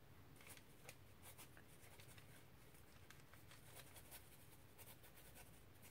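Faint, scratchy strokes of a watercolour paintbrush moving over paper, many short brushing sounds in quick succession.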